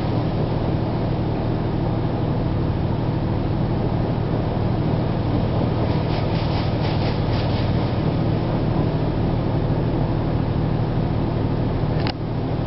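Automatic car wash spray hitting a truck's windshield and body, heard from inside the cab over a steady low hum. The noise breaks off briefly near the end.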